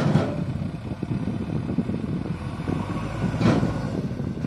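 Four-cylinder diesel engines of a tractor and a JCB backhoe loader running steadily, with two sharper knocks, one at the start and one about three and a half seconds in.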